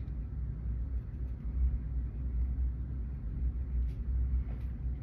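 Steady low background rumble with no speech, and a couple of faint soft ticks near the end.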